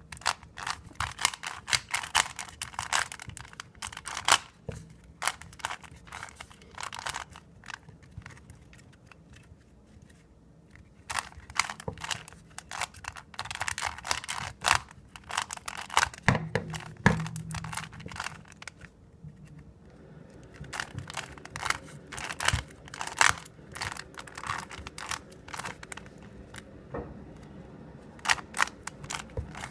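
A 3x3 Rubik's cube being turned fast in a speed solve: bursts of rapid plastic clicking and clacking as the layers snap round, broken by short pauses. A few dull knocks come in the middle, as the cube bumps against the surface below it.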